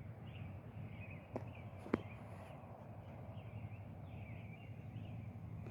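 Faint birds chirping at dawn over quiet background ambience, with two soft clicks about a second and a half and two seconds in.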